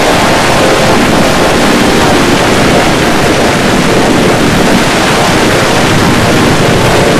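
Loud, steady, harsh noise filling the whole range, with faint held tones buried in it near the middle: an audio track processed by heavy editing effects until it is mostly distortion.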